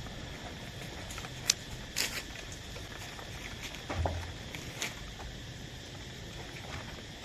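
Papers rustling and a fire crackling as sheets are dropped into a burning oil drum: a few sharp clicks, the loudest about one and a half and two seconds in, over a steady background hiss.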